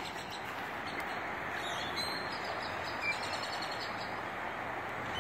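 Steady outdoor background noise with a few faint bird chirps, around two and three seconds in.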